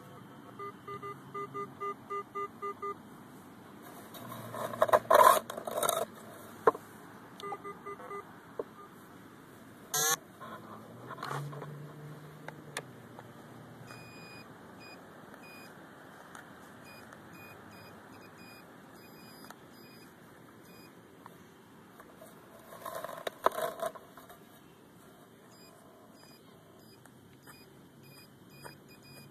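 Metal detector beeping in quick runs of short, evenly spaced tones while soil is dug and scraped out of a hole in turf. The scraping is loudest about five seconds in and again near the end.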